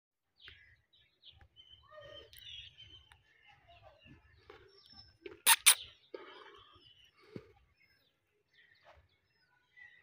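Alexandrine parakeet making soft, varied chirps and chattering calls, with two sharp, loud clicks in quick succession about halfway through.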